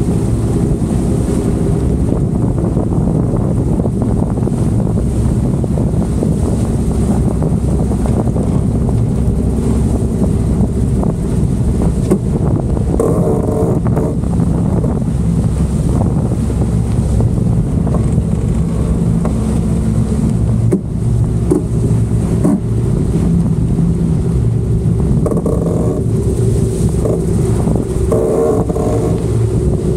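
Wind buffeting the microphone aboard a boat under way, a steady loud rumble with some hull and water noise mixed in.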